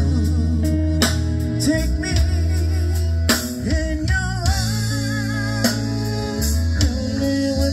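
Live band music: electric guitar, bass guitar, drum kit and button accordion playing together, with wavering sustained melody lines over a steady drum beat.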